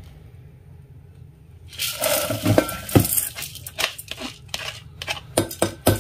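Washed basmati rice poured from a plastic mesh strainer into a pot, a rush of grains landing about two seconds in, followed by several sharp knocks and clinks as the strainer is tapped and shaken against the pot near the end.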